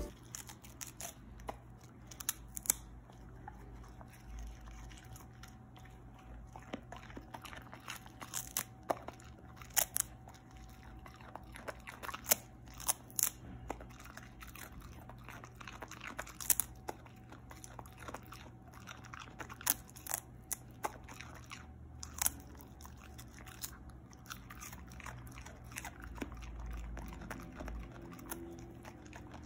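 Husky biting and chewing crisp napa cabbage leaves taken from a hand: irregular crunches throughout.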